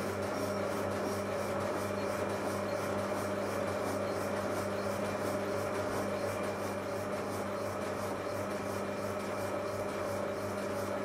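Steady hum and rushing noise from workshop machinery in a paint-mixing room, running without change.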